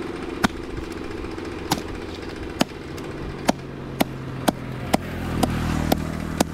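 A large knife chopping through a big catla fish into a wooden log block, about ten sharp chops at an uneven pace, over a steady engine hum.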